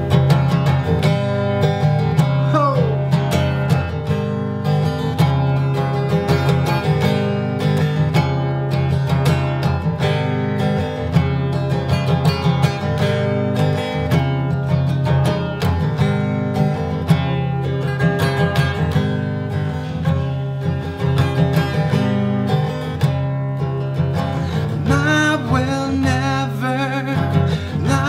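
Steel-string acoustic guitar strummed in a steady rhythm through an instrumental break between sung verses. Wordless vocals come in near the end.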